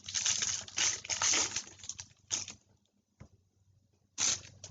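Rustling and crinkling from trading-card packs and cards being handled and opened, with a single click a little after three seconds and a short rustle about four seconds in.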